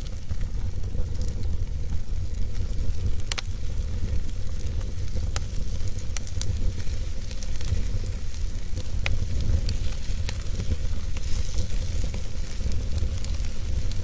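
Wood logs burning in a fireplace: a steady low rumble of the flames with scattered sharp crackles and pops, the clearest a little over three seconds in.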